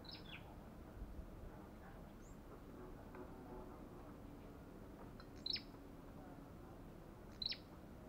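Caged tailorbird (Orthotomus sepium) giving a few short, sharp chip calls, each a high note that dips in pitch. The two loudest come about five and a half and seven and a half seconds in.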